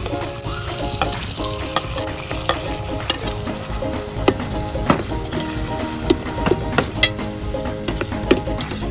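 Chopped tomatoes sizzling in hot oil with sautéed onion, garlic and mushrooms in a stainless steel pot, stirred with a metal spoon that clicks and scrapes against the pot many times.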